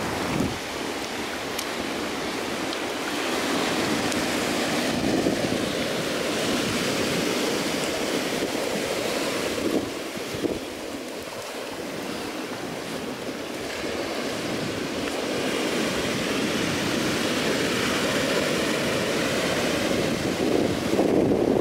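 Ocean surf breaking and washing up the shore, the noise swelling and ebbing slowly, with wind buffeting the microphone.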